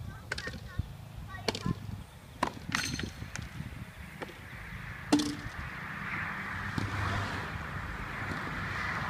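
Tennis balls struck with rackets and bouncing on a court: several sharp knocks in the first five seconds, the loudest about five seconds in. After that a steady hiss builds up.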